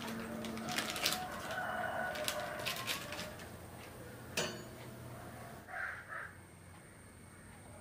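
Butter's paper wrapper crinkling as a block of butter is unwrapped on a wooden board, then a single knock about four seconds in as the knife is taken up. Birds call in the background, with two short calls about six seconds in.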